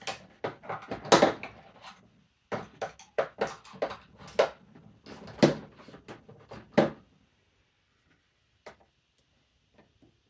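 Hand tools clattering and knocking as they are rummaged through to fetch a different screwdriver: a dense run of sharp knocks and rattles over the first seven seconds, then only a few faint clicks.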